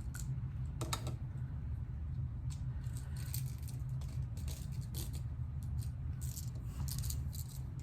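Scattered light clicks and rattles of hand sewing needles being put into a small heart-shaped needle case and the case being handled.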